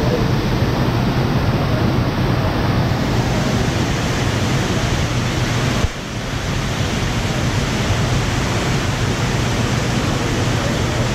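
Waterfall rushing, a steady loud roar of falling water, with a brief dip about six seconds in.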